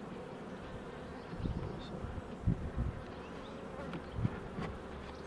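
Buckfast honeybee colony buzzing in a steady hum from the opened hive, with a few short low bumps and knocks from the hive being handled.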